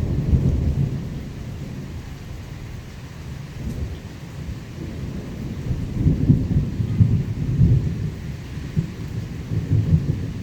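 Thunder rumbling during heavy rain: a low rolling rumble that eases after the first couple of seconds, then builds again in several swells over the second half, over a steady hiss of rain.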